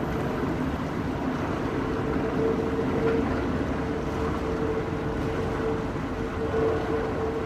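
Airbus A320-family airliner's jet engines rumbling steadily as it flies past on final approach, with a steady mid-pitched tone running through the noise.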